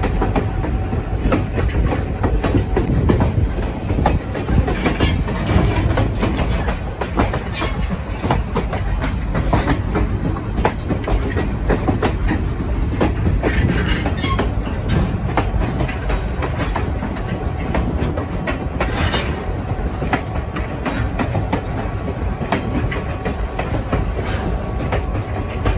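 Passenger train cars rolling along the track: a steady deep rumble with frequent sharp clicks of the wheels running over the rails.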